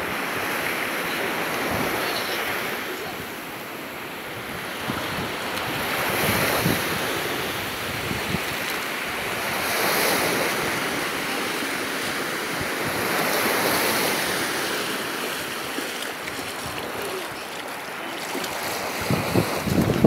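Small sea waves washing over a shallow sandy shore, swelling about every four seconds, with wind buffeting the microphone. Near the end, splashing in the shallow water.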